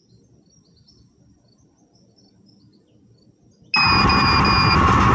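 Faint crickets chirping, then about three and a half seconds in the FPV racing quadcopter's motors and propellers spin up abruptly into a loud, steady buzzing whine. It is heard close up, from a camera mounted on the drone.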